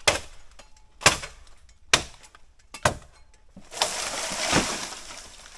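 A blade chopping into a bamboo stalk: four sharp strikes about a second apart. They are followed by about a second and a half of crackling and rustling through dry bamboo leaves and stems.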